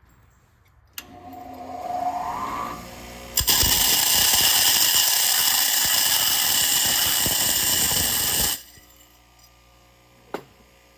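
Bench grinder switched on about a second in and running up to speed, then a wheel dressing tool pressed against the spinning grinding wheel for about five seconds with a loud, harsh grinding hiss, facing the wheel flat. When the dresser comes off, the grinder motor keeps humming steadily.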